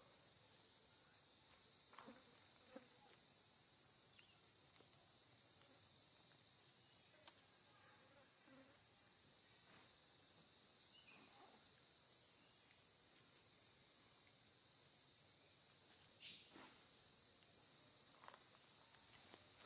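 Steady high-pitched chorus of insects, with a few faint scattered rustles and clicks.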